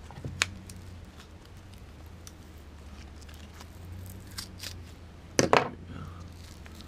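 The thick, layered paper casing of a round aerial firework shell being cracked and picked apart by hand: scattered small cracks and snaps, with a louder cluster of cracks about five and a half seconds in.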